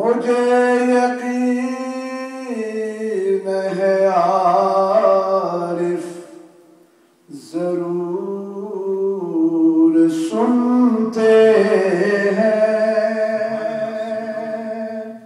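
A man's voice singing a naat, a devotional poem in praise of the Prophet Muhammad, unaccompanied, in long drawn-out held notes. There are two phrases, with a short pause for breath about halfway through.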